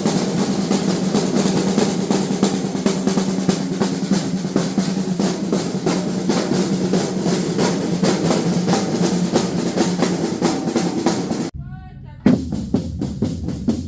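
A batucada drum ensemble playing a fast, dense groove of snare-type strokes over deep drums. It breaks off suddenly near the end, and after a short gap the drumming starts again.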